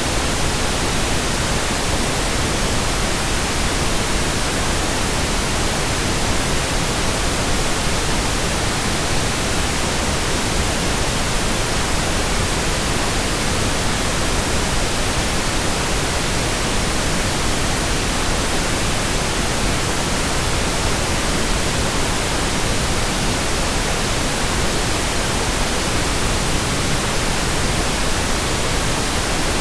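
Steady electronic white noise: an even, unchanging hiss spread across the whole range from low to high, with no rhythm or variation.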